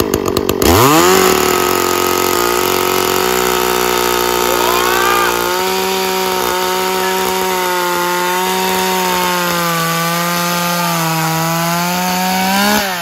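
Petrol chainsaw revved up from idle about a second in and held at full throttle, cutting into a log with a steady high engine note that wavers slightly under load. It drops back toward idle near the end.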